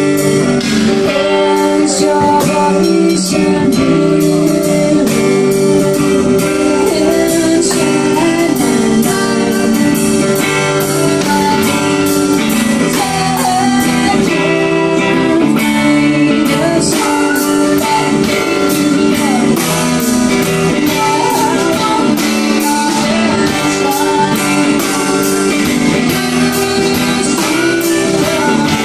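Live band playing a blues-rock song: electric guitar with drums and bass, and a woman singing.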